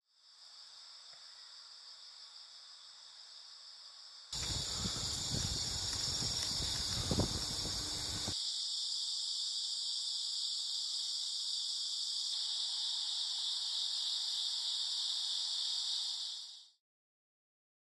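A chorus of insects trilling steadily in a high, fine pulsing buzz. From about four seconds in, a low rumbling noise runs under it for about four seconds. The chorus fades out near the end.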